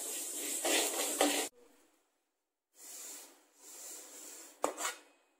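Roasted flax seeds hissing softly as a spatula stirs them in a metal kadai, then a soft rustling hiss as they are poured from a slotted spatula into a glass bowl. There is one sharp click near the end.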